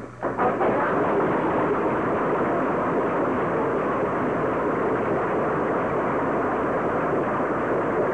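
Crowd applauding, breaking out about half a second in and then going on steadily as a dense patter of many hands.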